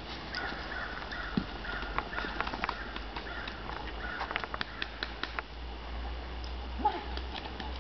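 Footfalls crunching on a gravel path: a young Belgian Malinois running after a thrown ball, mixed with a person's steps. They come as an irregular patter of short clicks, thickest in the first half.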